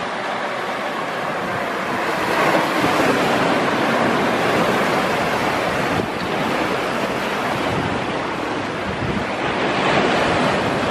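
Sea waves breaking and washing over a coral-rubble and stone shore, a steady rushing surf that swells louder a couple of seconds in and again near the end.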